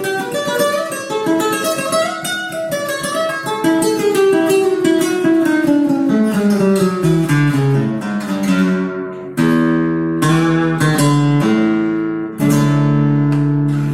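Alhambra 7FC CW E2 flamenco guitar being played: quick runs of single notes descending in pitch, then several strummed chords from about nine seconds in, the last one left ringing near the end.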